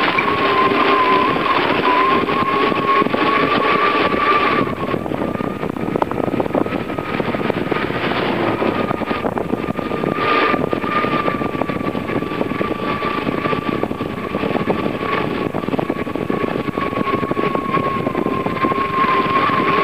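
Steady rush of wind and tyre noise from a bicycle riding along a paved road, with a thin high whine running through it that wavers slightly in pitch. The rush drops a little about five seconds in.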